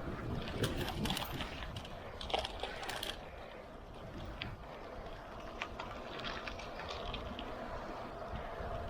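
Irregular clicks and light rattles from a road bike in motion, over a steady low rumble of wind and road noise.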